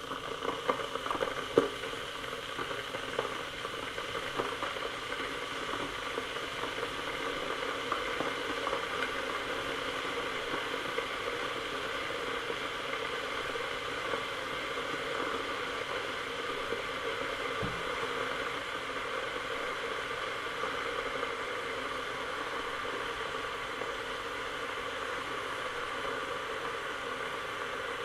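Electric kettle heating water: a steady rushing hiss of water coming up toward the boil, with small ticks and pops in the first couple of seconds.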